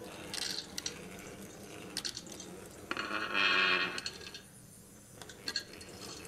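Small DC motors of a tabletop robot running, their electrical-tape-wrapped axles driving straight on the table surface, with scattered clicks. A louder buzzing stretch comes about three seconds in and lasts about a second.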